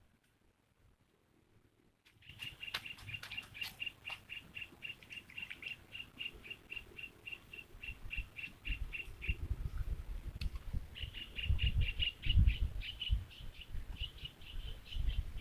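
A bird calling a fast series of short, high, evenly repeated notes, about five a second. It starts about two seconds in, pauses for a moment past the middle, then goes on again. Low rumbling thumps sound under it in the second half.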